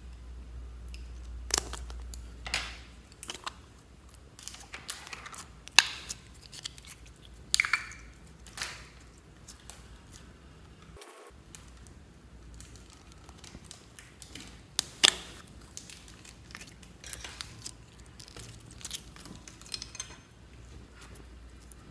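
Store-bought clear slime being pressed, pulled and handled in a plastic tray: irregular sticky clicks and pops, with a few sharper snaps.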